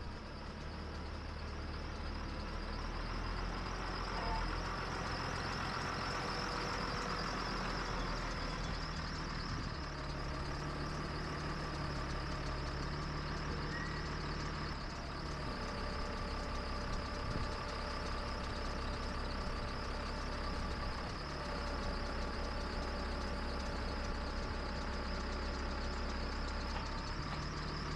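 Tractor engine running steadily, its low drone shifting up and down in pitch several times.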